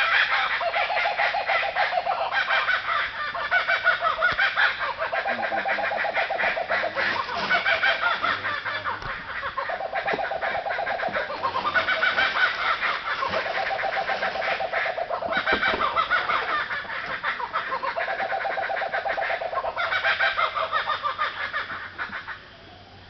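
A chorus of laughing kookaburras, several birds calling at once in long overlapping bouts of rapid, rising and falling laughter. The chorus stops abruptly near the end.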